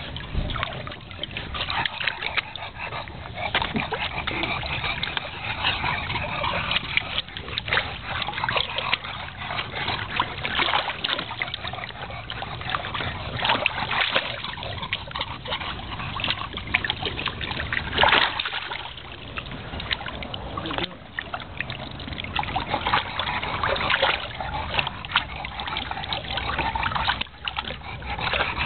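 Bulldogs and their puppies splashing and paddling in shallow water in a plastic kiddie pool, water sloshing and splattering irregularly throughout.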